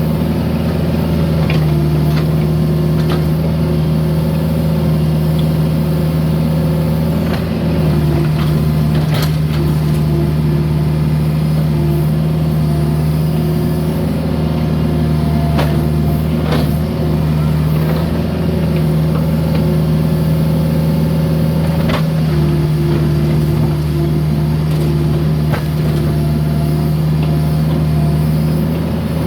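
Mini excavator's diesel engine running steadily under work, with a few sharp knocks and clanks scattered through.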